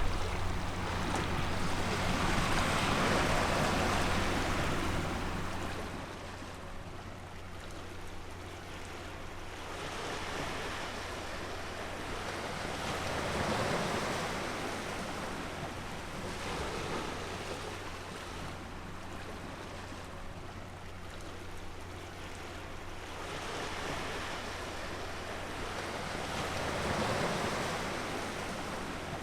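Sea waves washing onto the shore, each swell rising and falling over several seconds, with a low steady hum underneath.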